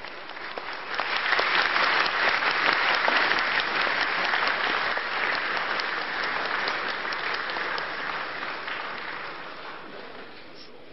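An audience applauding: many people clapping together, swelling about a second in and then slowly dying away near the end.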